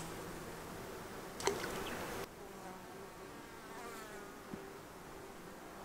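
Flying insects buzzing with a steady low hum, and one brief sharp sound about a second and a half in.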